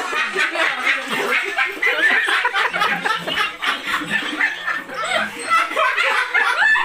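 Several women laughing together in rapid, overlapping bursts.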